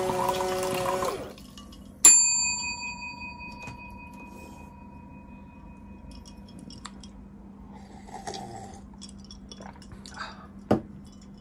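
The robotic bartender's 12 V peristaltic pumps and cup agitator whir as liquid runs into a glass measuring cup, and stop about a second in. Soon after, the glass cup is struck once and rings with a clear ping that fades over several seconds. Light handling clicks follow, then a sharp knock near the end.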